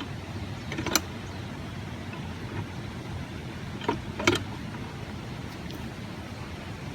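Steady low background rumble with a few sharp knocks: one about a second in and two close together around four seconds in, the clatter of objects being handled.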